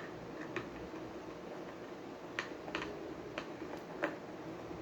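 Several light clicks and taps at irregular intervals, most of them in the second half, over a faint steady background noise.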